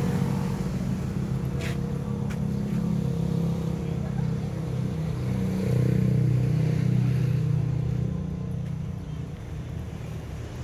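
A motor vehicle's engine running steadily at idle, getting a little louder for a couple of seconds past the middle, with two short clicks near the start.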